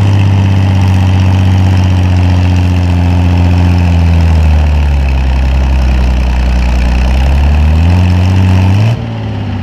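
Farm pulling tractor's engine running loud and steady. Its pitch falls for a few seconds midway and rises back. The sound drops off abruptly near the end.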